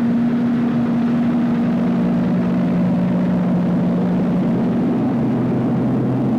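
Massey Ferguson 2800 tractor's Perkins V8 diesel engine running steadily under load. Its low note drops in pitch about two seconds in and falls again near the end.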